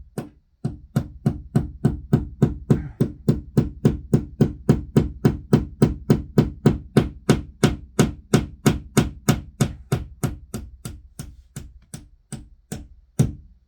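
A hammer driving a nail through sound-dampening material into a wall with a long run of steady blows, about three a second. The blows get lighter towards the end, then one harder blow lands near the end.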